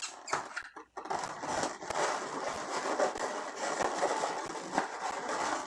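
Latex twisting balloons rubbing and scraping against each other and the hands as they are handled and twisted. A continuous rubbing with small clicks sets in about a second in.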